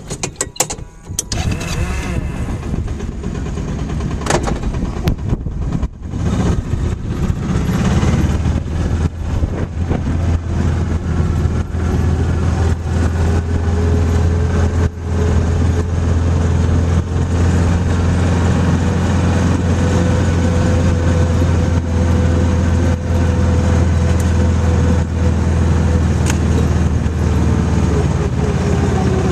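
Utility vehicle (ranch 'mule') engine starting, then running steadily under way from about eight seconds in, with a low hum and a fainter whine that drops near the end.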